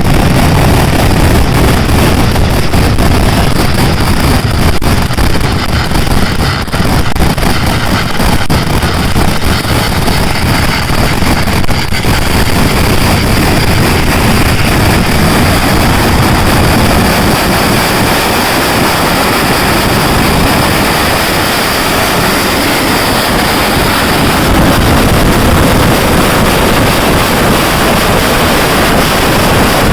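A dense, continuous fireworks barrage, with firecrackers going off so fast that the bangs run together into a loud, steady roar. For about the first twelve seconds separate cracks stand out, and then it settles into an even rumble.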